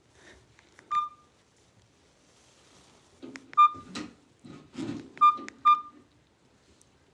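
Mobile phone keypad beeping as its buttons are pressed: four short beeps at the same pitch, one about a second in and three more close together later, with soft clicks and rustling of handling between them.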